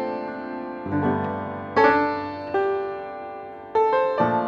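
Background piano music: slow chords struck every second or so, each fading away before the next.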